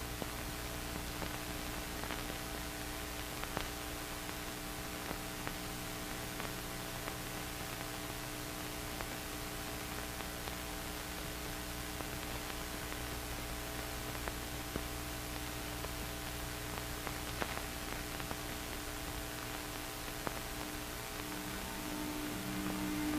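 Steady hiss with an electrical mains hum and a few faint scattered clicks: the empty soundtrack noise of an old film, with no speech or music.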